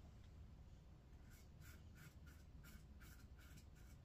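Faint scraping of a Fatip il Piccolo open-comb safety razor cutting lathered stubble: a quick run of about nine short strokes starting a little over a second in.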